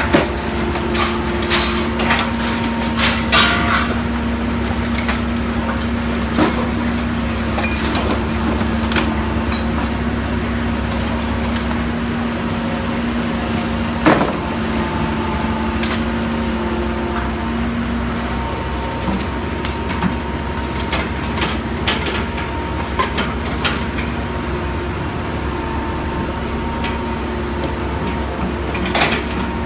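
Excavator's diesel engine running steadily with a droning hydraulic tone that fades away about two thirds of the way through and then returns, and occasional sharp clanks of scrap metal.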